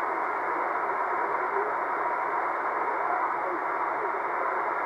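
C. Crane Skywave SSB2 shortwave receiver on single sideband giving a steady hiss of band noise, with a weak, barely readable voice under it from a faint amateur station.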